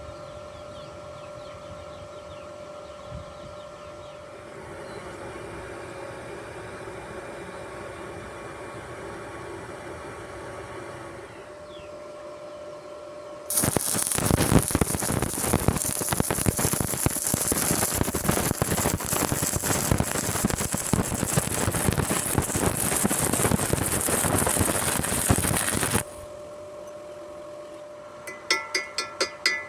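Stick-welding arc crackling and sizzling steadily for about twelve seconds in the middle, cutting off sharply, with a steady hum before and after it. Near the end, quick metallic hammer taps begin.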